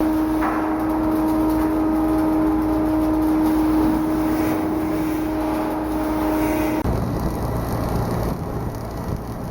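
Shipyard machinery running with a steady, even-pitched hum over a low rumble; the hum cuts off suddenly near the end, leaving a rougher low rumble.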